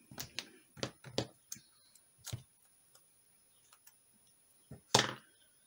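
Scattered light clicks and taps of paper and film being handled and pressed onto a small card, with a sharper snip of scissors trimming it about five seconds in.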